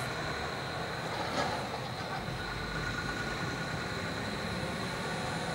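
Train approaching with a steady low rumble, alongside a steady high-pitched whine.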